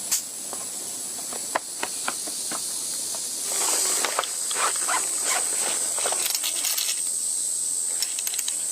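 Forest ambience: a steady high hiss with a high, even insect drone that swells in about three and a half seconds in, over scattered sharp clicks and knocks.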